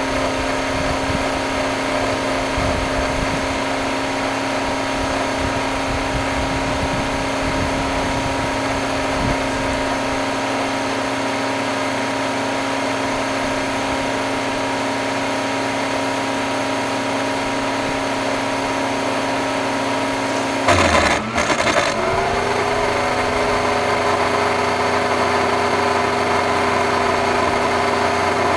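Electrolux vacuum cleaner with a bad motor running with a steady whine. About three-quarters of the way through, a brief loud clatter interrupts it, and the motor then keeps running at a changed pitch.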